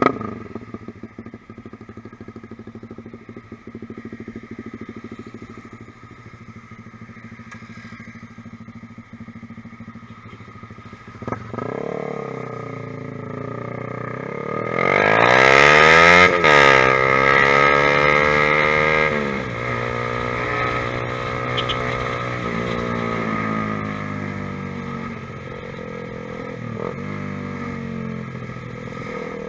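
Honda CBR150R's single-cylinder four-stroke engine through a ProLiner TR1-R aftermarket exhaust, idling steadily. About halfway through the revs climb to a loud peak and fall back, then rise and fall a few more times before settling toward idle.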